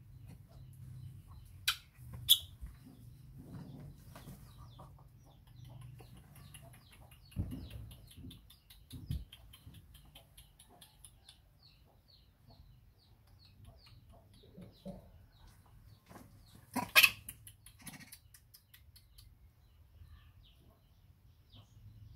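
A rapid series of short, high chirps, with a few loud sharp squeals: twice near the start and once late on. There are also a couple of soft low thumps.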